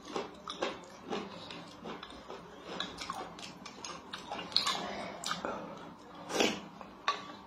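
Close-up mouth sounds of a person eating thick rice porridge: wet chewing and smacking made of many short clicks, the loudest a little after six seconds.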